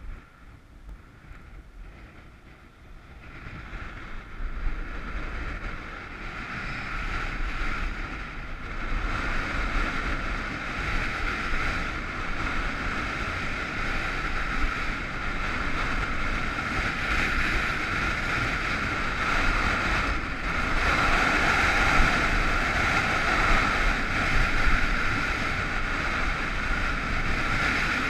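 Skis hissing and scraping over hard-packed groomed snow, with wind buffeting the microphone. It is quiet for the first few seconds, then builds to a steady rush as the skier picks up speed.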